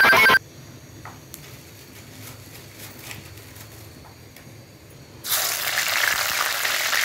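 Hot oil in an iron karahi quietly heating, then bursting into loud, steady sizzling about five seconds in as food is dropped in to fry for a tempering. A short tail of ringtone-like music ends just as it begins.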